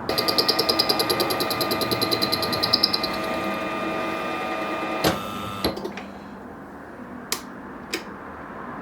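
A small electric power tool motor runs with a steady whine and a fast pulsing for about three seconds, then fades and stops with a click about five seconds in, followed by a few more sharp clicks.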